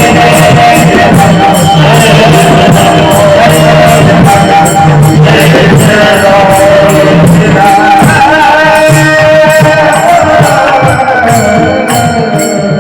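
Marathi bhajan music: a sung devotional melody over a steady percussion beat of about two to three strokes a second. It fades down near the end.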